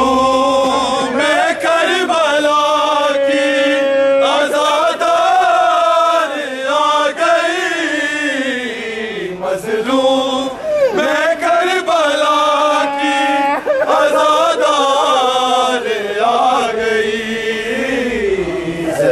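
Noha, a Shia mourning lament, recited unaccompanied: a slow melodic chant with long, held, wavering notes, breaking off briefly now and then for breath.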